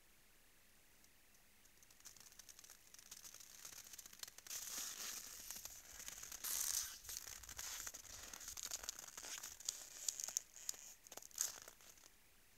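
A moose walking on snow close by, its hooves crunching and crackling, an irregular run of crunches and sharp clicks that starts about two seconds in and stops shortly before the end.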